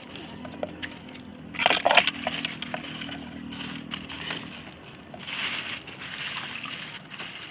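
Thin plastic bag crinkling and rustling as hands handle the fish inside it, loudest in a burst about two seconds in, with a second, softer rustle past the middle.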